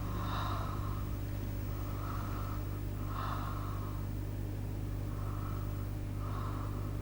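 A person breathing loudly in and out through a wide-open mouth, slow even breaths in pairs about every three seconds, over a steady low electrical hum.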